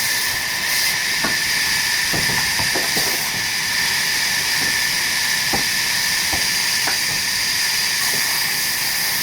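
Sawmill saw cutting teakwood: a steady, high-pitched hiss and whine, with a few faint knocks scattered through it.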